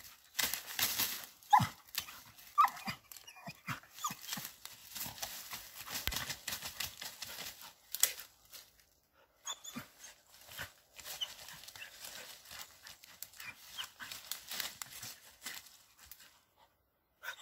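A dog gnawing and tugging at a large branch among dry leaves and twigs: irregular cracking and crunching of wood with rustling brush, and a few brief whines in the first few seconds.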